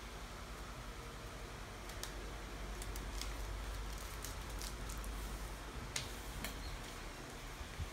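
A sheet of paper being folded and creased by hand into a paper airplane: soft rustling with a few short, sharp crinkles as the folds are pressed flat, over the steady whir of an electric fan.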